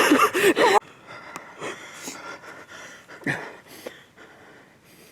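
A brief burst of excited voice, then a hunter's heavy breathing with a few soft gasps and faint rustles.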